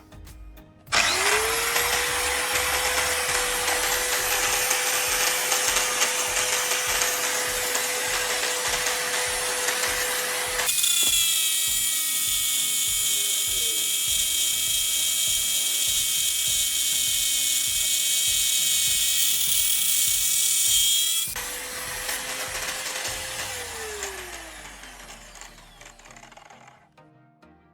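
Angle grinder spinning up, then running under load through a cut for about twenty seconds; about halfway the cutting noise changes to a harsher, whining sound. It is then switched off and the motor winds down.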